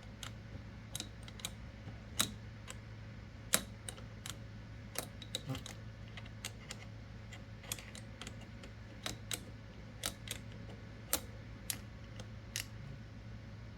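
Irregular small clicks and ticks of metal parts being handled and adjusted on a reloading press, about one or two a second, some in quick pairs, over a steady low hum.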